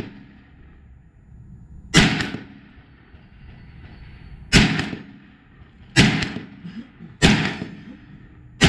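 AR-15 rifle fired in slow semi-automatic shots: five shots, one to two and a half seconds apart, each dying away over about half a second.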